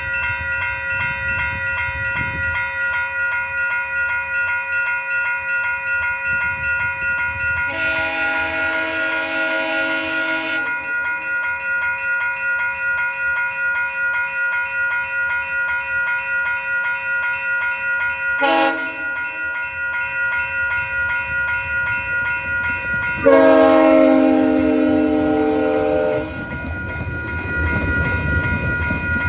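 Multi-chime locomotive horn sounding the level-crossing signal: a long blast, a short one and a final long, louder blast that drops slightly in pitch as the train reaches the crossing. Under it a level-crossing warning bell rings steadily, and near the end comes the rush of the train passing.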